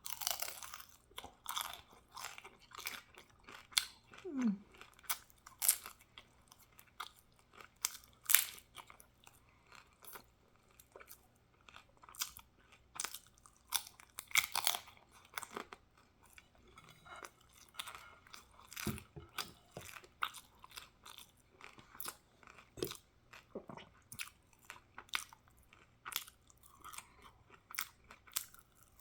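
A person biting and chewing crispy chicken tostadas, with many irregular crunches of the fried shells.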